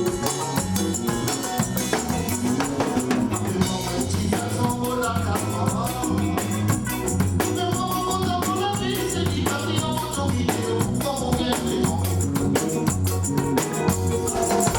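Live band music at a sound check: a drum kit beat with a repeating bass line and a steady shaker or tambourine pattern, with a melody over it.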